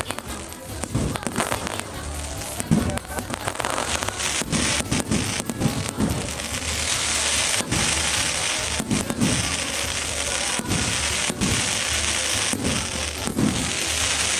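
Large bonfire crackling, with dense sharp pops and bangs over a hiss that builds a few seconds in.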